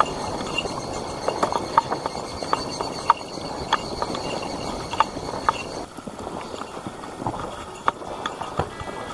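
Hiker's footsteps on a dirt and leaf-litter mountain trail, an uneven walking rhythm of crunches with sharp clicks about every half second.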